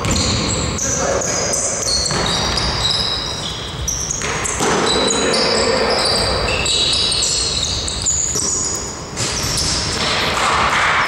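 Basketball being dribbled on an indoor court during play, with repeated ball bounces and many short, high sneaker squeaks from players cutting on the floor, echoing in a large hall.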